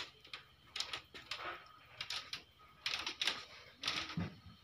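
Handling noise from a hand-held phone camera being swung around: scattered light knocks, clicks and rustles.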